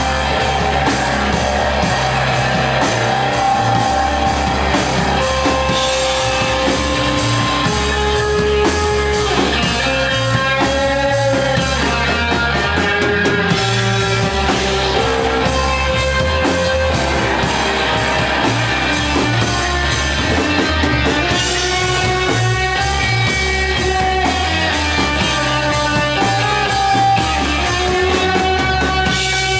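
Doom metal band playing live: slow, held notes on a heavily fuzz-distorted electric guitar through a Matamp GT1 valve amplifier, some bending in pitch, over a steady drum kit beat.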